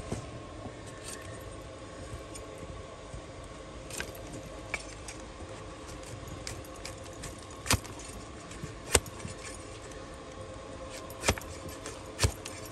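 A large flat hoof knife being pressed and levered through a donkey's overgrown hoof horn, with several sharp cracks a second or more apart as the hard horn splits and shavings break off; the cracks are louder in the second half.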